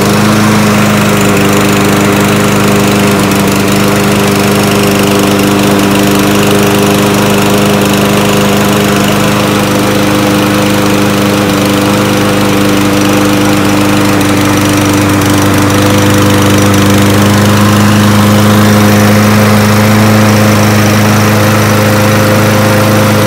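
Craftsman Gold push mower's 140cc engine running at a steady speed, a little louder in the second half. The mower runs poorly and dies under load, a fault traced to a dirty air filter.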